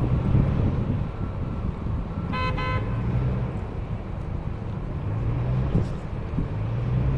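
A vehicle horn honks once, briefly, about two and a half seconds in, over the steady low rumble of vehicle engines running in stalled traffic.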